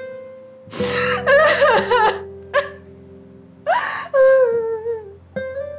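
A young woman crying hard, three bouts of sobbing with breaths between them, over soft acoustic guitar music.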